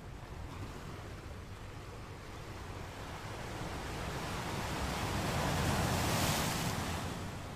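Sea water washing and rushing, swelling to a loud surge about six seconds in and easing near the end, over a steady low rumble, with wind on the microphone.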